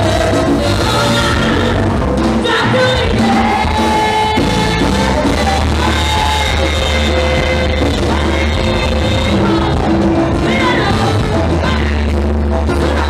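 Live Latin dance band playing loudly: women singing the lead over trumpets, congas, drum kit and a steady bass line.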